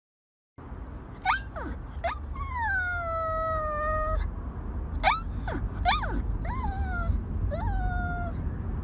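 Pug whining: a string of high-pitched whimpers and yelps that rise and then fall, with one long whine sliding down in pitch about two and a half seconds in. A steady low rumble runs underneath.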